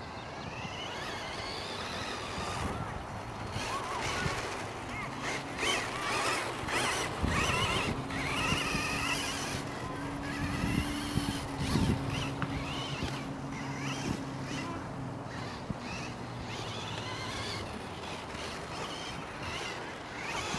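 Kyosho Ultima 2WD electric RC buggy running on a dirt course: its motor and gears whine, rising and falling in pitch as the throttle is worked, with grit scattering under the tyres. A steady low hum runs through the middle.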